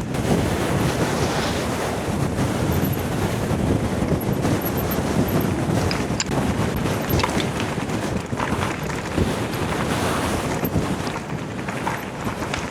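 Strong wind buffeting an action camera's microphone, a loud, steady, rough rushing, with a few faint clicks from the bike over the second half.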